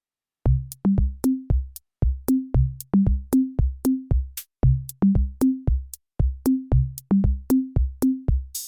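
Background music: a drum-machine beat of pitched, tom-like drum hits about three a second, starting about half a second in out of silence. A cymbal-like crash just before the end brings in fuller synth music.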